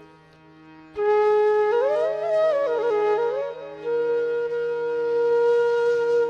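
Background music: a single pitched melody line with quick ornamental turns over a steady low drone, coming in loudly about a second in and settling into a long held note.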